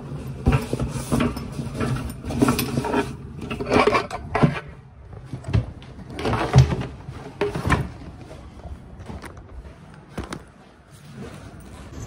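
Rustling and knocking of a bag and its contents being handled right at the phone's microphone, in irregular bursts that thin out after about eight seconds.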